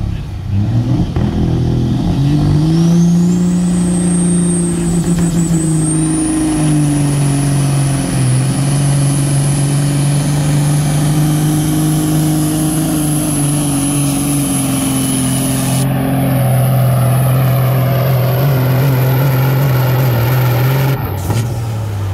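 Cab-over semi tractor's diesel engine at full throttle, pulling a weight-transfer sled. A high turbo whistle rises over the first few seconds and then holds. The engine note steps down once partway through and falls away near the end as the truck stops.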